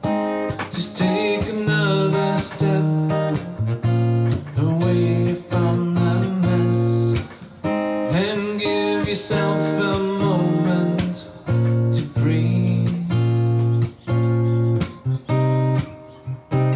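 Guitar playing: strummed chords with single-note phrases, some notes bending in pitch.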